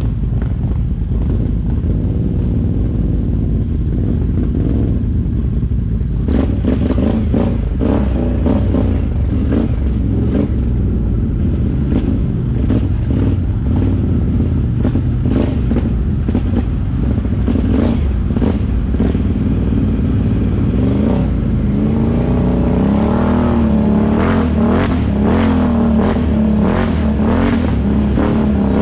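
Can-Am ATV engine running under throttle, its pitch rising and falling as the throttle is worked, most clearly in the last third. Repeated clattering knocks come in from a few seconds in, as the machine goes over rough ground.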